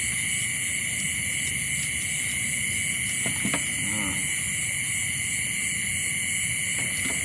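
Steady chorus of night insects, a constant high-pitched drone. A brief murmur of a voice comes about halfway through.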